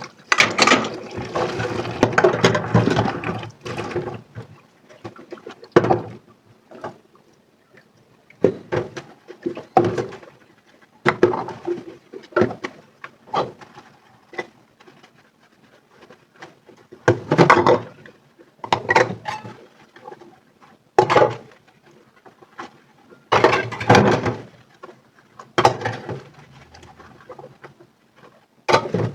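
Dishes being hand-washed at a sink. Water runs for the first few seconds, then come intermittent short clatters and splashes as dishes are handled and scrubbed in the suds.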